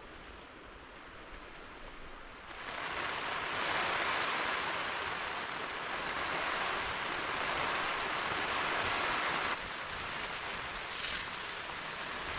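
Mountain stream water rushing steadily over rocks. It gets suddenly louder a couple of seconds in and drops slightly near the end.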